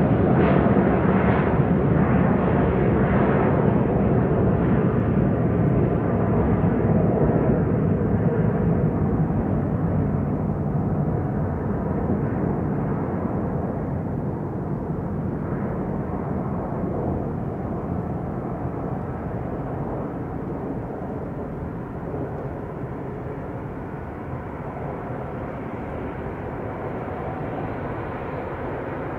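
Boeing 767-300ER jet engines in reverse thrust on the landing rollout: a loud, steady rumble that slowly fades as the airliner decelerates.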